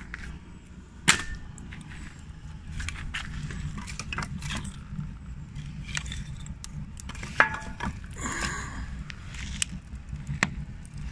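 Wood fire burning in a steel stove's firebox, with crackling and the knocks and scrapes of split sticks being handled and pushed in. A few sharp knocks stand out, the loudest about a second in and again about seven seconds in.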